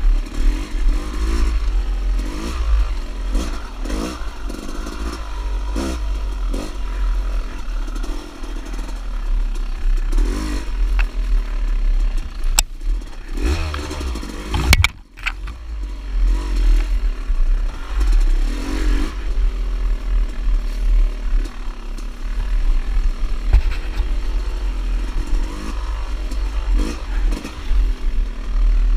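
Dirt bike engine rising and falling in pitch as the throttle is worked, with a heavy low rumble of wind on the microphone and knocks from the bike over rough ground. About fifteen seconds in the engine briefly drops away, then picks up again.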